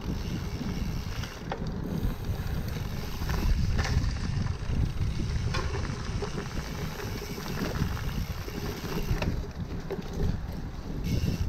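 Wind buffeting the microphone of a handlebar-mounted camera on a cyclocross bike riding a rough dirt trail, over a steady low rumble of tyres on the ground. Several sharp clicks and rattles come through as the bike jolts over bumps.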